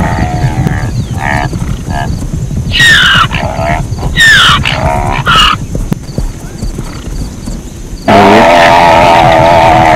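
Zebra calling: short high calls that fall in pitch about three and four seconds in, then a loud drawn-out call starting about eight seconds in, over a steady low rumble.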